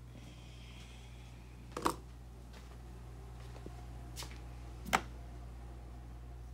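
Steady low hum with two sharp knocks about three seconds apart and a lighter tick between them.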